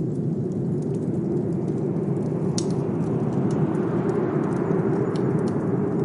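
Blizzard wind ambience: a steady low rumble of wind with a hissing gust that swells in the middle and eases off, over scattered sharp crackles of a fireplace, one louder about two and a half seconds in.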